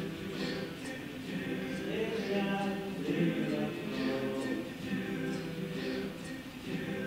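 All-male a cappella group singing held chords in close harmony, with short hissing consonant sounds recurring about every two seconds.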